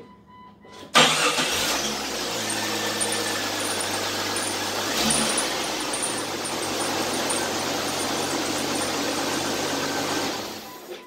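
1999 Jeep Cherokee XJ engine started and running at idle with its serpentine belt and accessory pulleys turning, with a brief rise in speed about five seconds in, then dying away near the end. The rattle from the loose water pump pulley seems gone now that the pulley is tightened.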